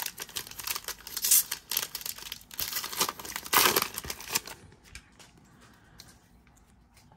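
Foil wrapper of a trading card pack crinkling and tearing as it is ripped open by hand, loudest about three and a half seconds in. After about four and a half seconds it gives way to faint clicks of the cards being handled.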